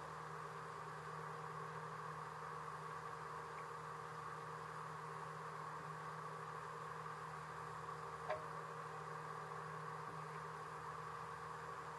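Steady low engine hum of a boat under way, with a single faint click about eight seconds in.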